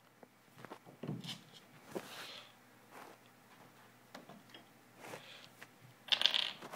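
Scattered soft rustles and light knocks, with a louder rustling burst about six seconds in.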